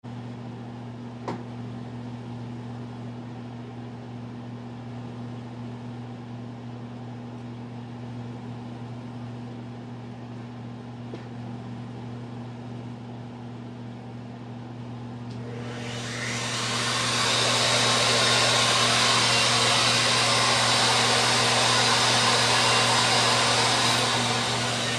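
A steady low machine hum, then about 15 seconds in a handheld wood router spins up and runs loudly as it trims the drawer edges flush to a straight line, easing off slightly near the end.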